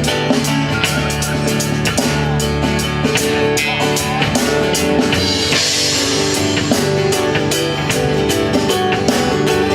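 Rock music with drum kit and electric guitar, the drums keeping a steady beat and a cymbal wash swelling about five seconds in.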